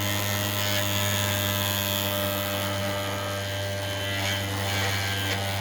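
A 3D-printed magnetic-levitation rotor of a pulse motor spinning at speed, making a steady hum. Its shaft end is dry-lubed, so it hums rather than whines.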